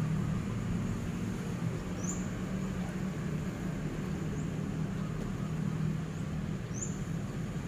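Outdoor background noise with a steady low hum, and a short high rising chirp, as from a small bird, about every two to five seconds.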